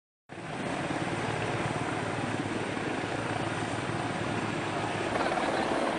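Helicopter running, a steady rotor and engine sound that starts abruptly a moment in and holds even throughout.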